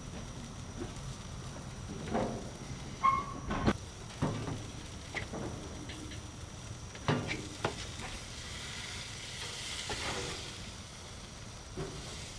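Burgers sizzling on a grill, a steady frying hiss that swells briefly near the end, with several sharp clicks and knocks.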